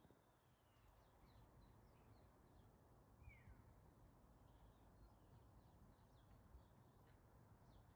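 Near silence: faint outdoor quiet with small birds chirping in the distance, one clearer falling call about three seconds in.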